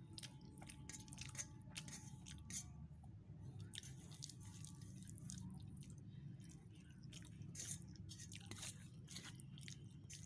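Eating rice by hand from a steel plate: faint, scattered clicks and scrapes as fingers gather rice on the metal, with chewing, over a low steady hum.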